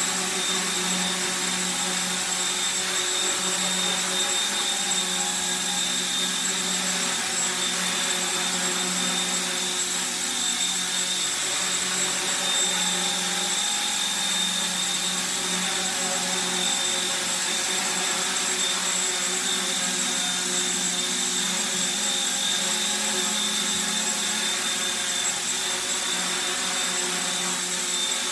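Small electric radio-controlled model helicopter, a 1/35 scale Black Hawk running on XK K110 flight electronics, hovering and manoeuvring. It makes a steady electric motor whine over the hum of the rotor blades, holding an even pitch and level throughout.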